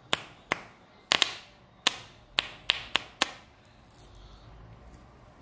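Stiff gold-foil playing cards snapping as they are flicked off the deck, about eight or nine sharp snaps at uneven intervals that stop about three and a half seconds in.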